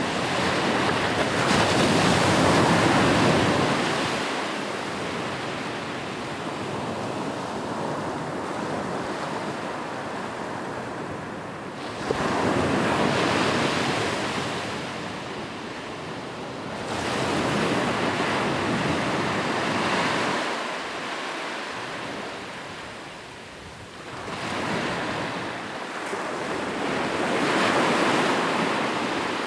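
Sea waves breaking and washing up the shore, the rush of surf swelling and ebbing about five times, one wave breaking abruptly about twelve seconds in.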